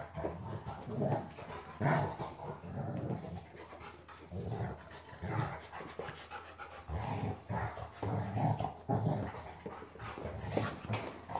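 Two golden retrievers, a grown dog and a puppy, play-wrestling: rough play growls, grunts and panting come in quick, irregular bursts. It sounds fierce, but it is play, not a fight.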